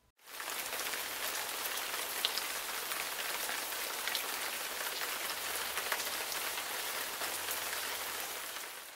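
Steady rain falling, with scattered drops pattering. It fades out near the end.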